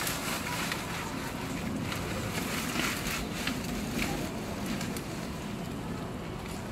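Wind rushing and buffeting on the microphone, a steady, fluctuating noise.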